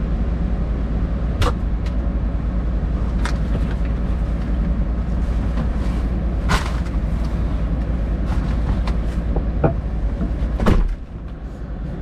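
Motor vehicle running with a steady low rumble, with a few sharp knocks or clicks over it; the rumble drops away near the end.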